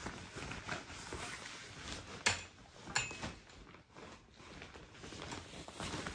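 Rustling fabric and scattered clicks and knocks as a photography softbox and its light stand are handled, the sharpest click about two seconds in.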